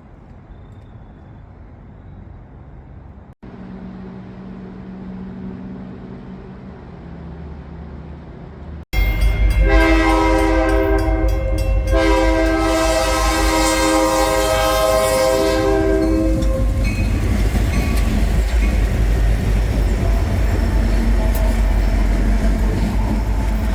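Reading and Northern freight train passing at speed: its locomotive's multi-tone air horn sounds in a few blasts, the last held for several seconds, over the heavy rumble of the train. The train comes in suddenly about a third of the way in, after a quieter stretch of low hum, and its rumble carries on after the horn stops.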